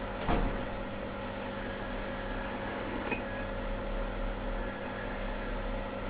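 Steady machine hum with a faint noise hiss, broken by a short knock about a third of a second in and a faint tick about three seconds in.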